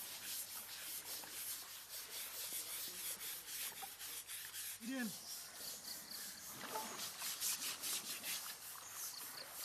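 Scrubbing brushes rasping over an elephant's wet hide in quick, repeated strokes as it is bathed. A short call is heard about five seconds in.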